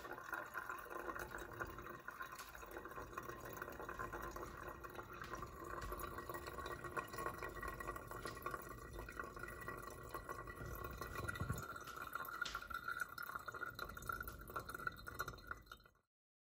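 Seawater trickling and dripping through a paper coffee filter into a glass coffee server, straining out impurities. A thin, steady stream with scattered drips, which stops abruptly near the end.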